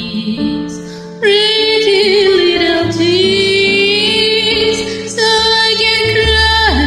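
A woman singing karaoke over a recorded pop backing track: three long held notes with vibrato, the first coming in strongly about a second in.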